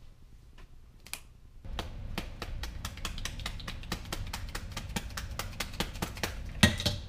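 Rapid, regular clicking, about six clicks a second for some five seconds, from a small kitchen gadget worked by hand, with one louder knock near the end.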